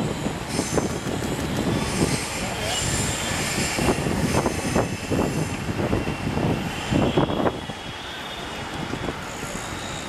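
Mumbai Metro Line 1 train running along its elevated concrete viaduct and rounding a curve: a steady rolling rumble with irregular surges.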